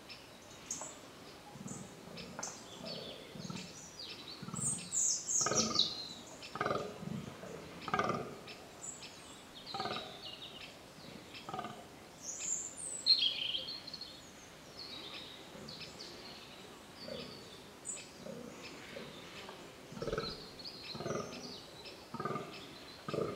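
Fallow deer buck groaning in the rut: a run of short, low grunting calls about a second apart, coming in bouts. Small birds chirp now and then over it.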